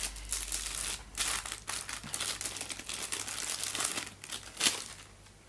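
Clear plastic bag crinkling in irregular crackles as it is handled and opened to take out a metal drive adapter bracket. There is a sharper crackle a little before the end, then it goes quiet.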